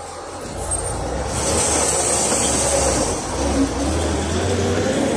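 Engine of a PAZ 320540-22 city bus (ZMZ-52450A) running close by, a low rumble that swells about half a second in and then holds steady, with a steady hiss above it.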